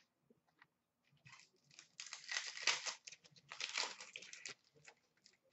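A trading-card pack wrapper being torn open and crinkled. The crackling comes in two loud spells, about two and about three and a half seconds in, then turns to lighter rustling.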